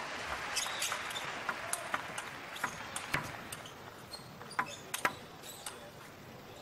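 A crowd applauding in a large hall, fading over the first couple of seconds. Then comes a string of sharp, uneven clicks of a plastic table tennis ball bouncing and being tapped between points.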